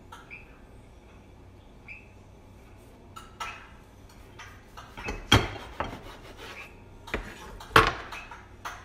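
Kitchen knife cutting a sandwich of whole-grain bread in half on a plastic cutting board: soft scraping as the blade goes through the bread, then a series of sharp knocks and clatters of the knife on the board. The two loudest come about five seconds in and near the end.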